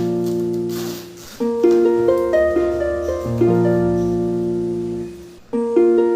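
Background music: a light melody of plucked-string notes, dropping away briefly about a second in and again near the end before carrying on.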